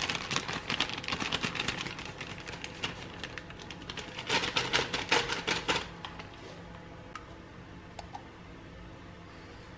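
Dry cake mix pouring out of a paper packet into a plastic mixing bowl, the packet rustling and crinkling in a rapid patter, loudest in a second spell about four seconds in, then dying down.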